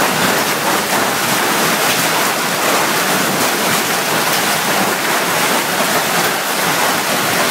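Heavy hail pelting a swimming pool: a loud, steady, dense wash of hailstones splashing into the water and striking the paved deck, with many sharp individual hits throughout.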